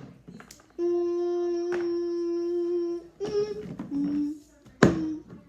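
A child humming or vocalising: one long held note, then two shorter notes at different pitches. Sharp knocks of toys being handled come just before the held note ends and again near the end.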